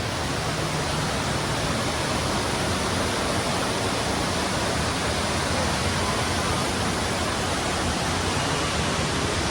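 Indoor cascade waterfall rushing steadily, a constant, even roar of falling water.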